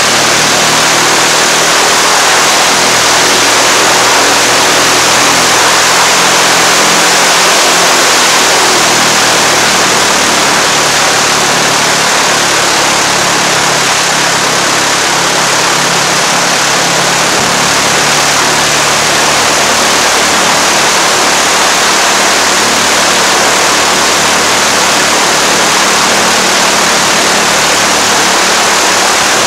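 Beechcraft Musketeer's piston engine and propeller running steadily on the ground with the cowling off, a loud even rush over a low engine hum. It is a post-maintenance ground run to check the repaired starter and vacuum pump and to charge the battery.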